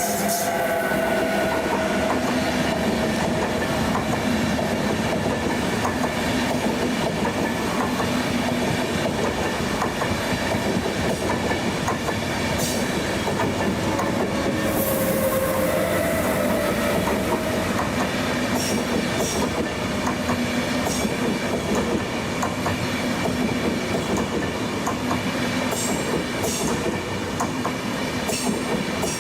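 A train running through a station, wheels clattering over the rails for the whole span. Thin whining tones drift in near the start and again around the middle, with a few sharp clicks later on.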